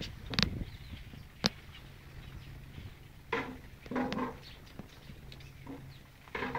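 Handling noise from a handheld camera: scattered sharp clicks and a few short scuffs over a faint steady low hum.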